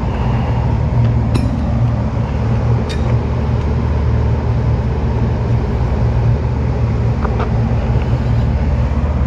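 Steady low hum of a running machine, with a few light metal clicks as a brass hose fitting is handled and threaded onto a nitrogen cylinder valve.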